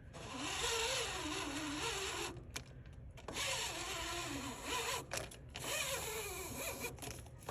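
Vacuum sucking air through an HVAC condensate drain line, a rushing hiss with a wavering whistle, in three stretches broken by short drops.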